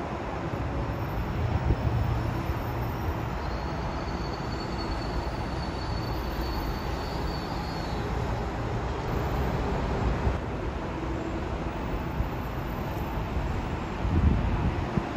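Electric commuter train approaching a station platform, a steady low rumble of the train on the rails, with a faint high whine for a few seconds near the middle and a louder swell of rumble near the end.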